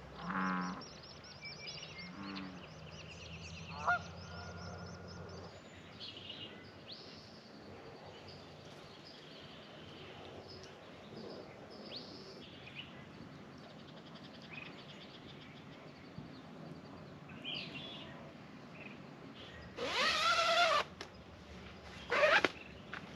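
Goose honking: one loud, drawn-out call about twenty seconds in and a shorter one just after, over scattered faint chirps of small birds.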